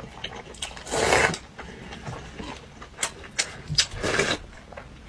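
Mouth slurping noodles and broth from a bowl: a long noisy slurp about a second in and another near the end, with a few short wet clicks and smacks between them.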